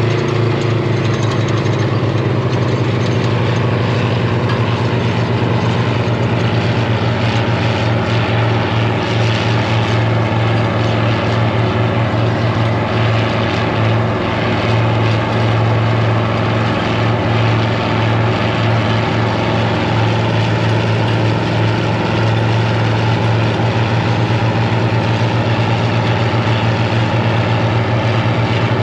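Large John Deere diesel tractor running steadily under load as it pulls a disc harrow through dry soil: a continuous, even engine drone.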